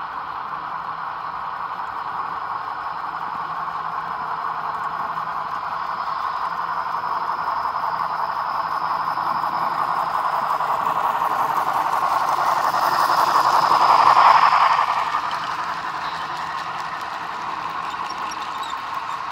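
Model trains running on the track: a steady whirring rattle of wheels on rail and motor that swells as the Milwaukee Road steam locomotive and passenger cars pass close about fourteen seconds in, then eases off. A thin high squeal rides over the middle.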